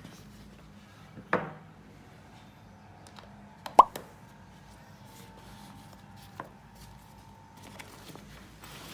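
A short, sharp pop with a brief pitch curve just under four seconds in, timed with a caption change like an edited-in pop sound effect. Between it come a soft knock about a second and a half in and a few light clicks from an iPad in its case being handled and put into a backpack.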